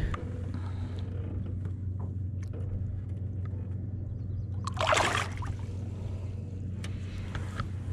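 A short splash of water beside a kayak about five seconds in, over a steady low hum, with a few faint knocks.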